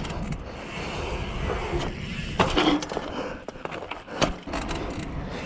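Mountain bike tyres rolling on an asphalt pump track, a steady rumble with wind on the microphone, and a few sharp knocks from the bike, loudest about two and a half and four seconds in.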